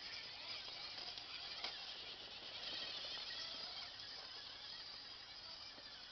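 1:10 scale RC rock crawler crawling over wet stones, its electric motor and drivetrain running in a steady hiss with a few clicks of tyres on rock, fading slowly as it drives away.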